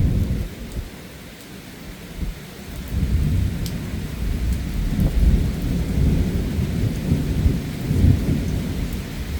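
Thunder rolling over heavy rain during a thunderstorm. The low rumble fades about half a second in, then builds again about three seconds in and rolls on unevenly, over a steady hiss of rain.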